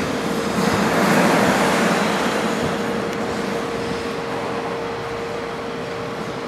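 Ice rink ambience: a steady hum under a rushing noise that swells about a second in and then slowly eases, with skaters gliding on the ice.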